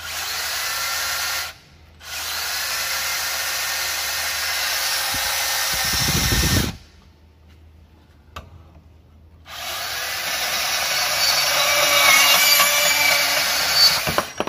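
Makita DPB183 18V brushless cordless portable band saw run at top speed, switched on three times; on the last run it cuts into the steel pipe, getting louder with a squealing note, and a sharp knock comes near the end. A low thump sounds as the second run stops.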